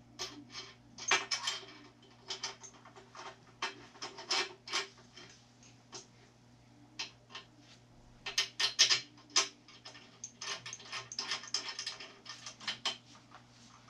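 Irregular metallic clinks and clanks as steel brackets and bolts are handled and fitted against a steel spray-boom bar, coming in quick clusters and loudest about eight to nine seconds in, over a steady low hum.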